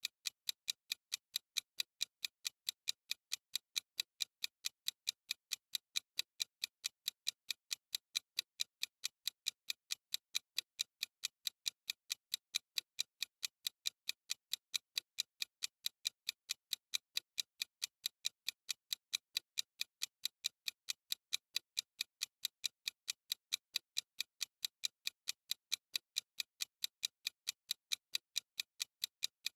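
Clock-style ticking sound effect of a countdown timer: light, crisp ticks repeating fast and evenly, several per second.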